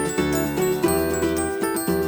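Background music: a bright, upbeat tune with a steady beat and chiming bell-like notes over a bass line.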